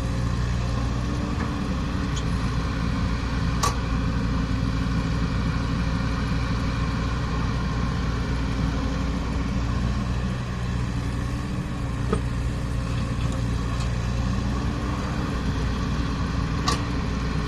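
Caterpillar 307E excavator's diesel engine running at a steady speed, with two sharp clicks, one about four seconds in and one near the end.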